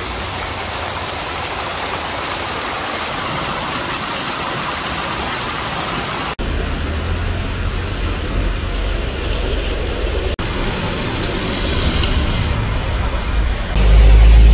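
Muddy rainwater runoff rushing down a rocky ravine and pouring over rocks in small cascades, a steady rush of water. About six seconds in it takes on a deep rumble, and near the end it jumps louder as the torrent drops close by.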